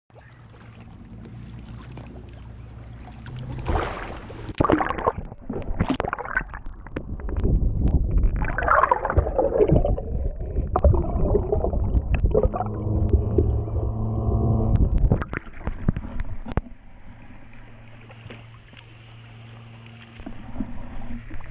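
A fishing boat's engine drones steadily. From about 4 to 15 seconds in, loud splashing, knocks and rattling come over it, then it settles back to the engine hum.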